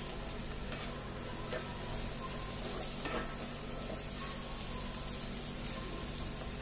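Bitter gourd and onion sabji sizzling in a pan over a low gas flame, a steady soft hiss with a few faint ticks.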